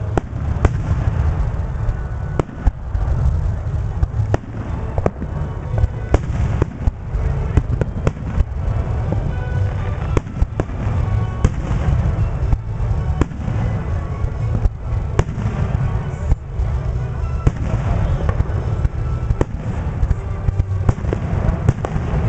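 Fireworks finale: aerial shells bursting in rapid, overlapping succession, a continuous deep rumble with many sharp bangs throughout.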